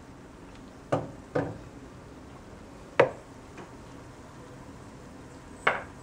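Sharp knocks of metal kitchen utensils against a steel pan: two about a second in, the loudest at about three seconds, and two more near the end. Under them, a faint steady sizzle of murukku dough frying in hot oil.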